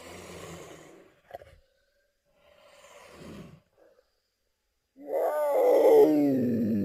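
Serval vocalizing: two soft, breathy exhalations, then about five seconds in a loud, drawn-out call that falls in pitch.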